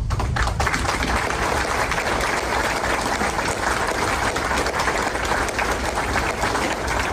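Audience applauding steadily: many hands clapping at once, in thanks to people who have stood up.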